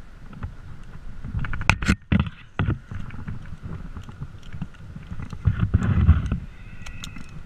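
Wind rumbling on the microphone, with rustling and a few sharp clicks of climbing rope and hardware being handled about two seconds in, and a louder stretch of rustling around six seconds in.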